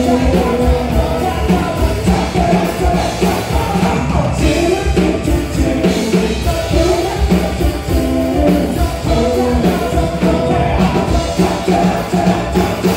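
A man singing a pop song into a microphone while playing an electronic keyboard, over a steady beat.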